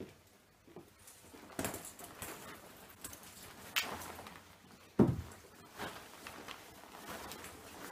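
Handling noise close to the microphone: rustling of a coat and things being moved, with a few sharp knocks, the loudest about five seconds in.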